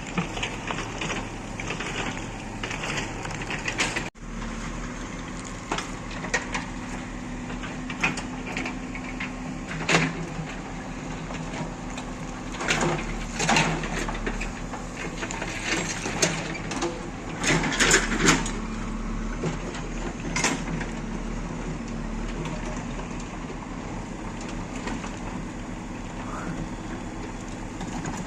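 Diesel engine of heavy machinery running steadily, with scattered sharp cracks and knocks over it. The sound drops out for an instant about four seconds in.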